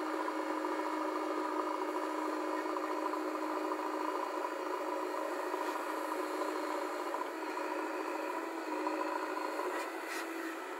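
JCB 3DX backhoe loader's diesel engine running steadily at working revs while it digs and loads soil, heard thin with no bass, with a couple of short clicks near the end.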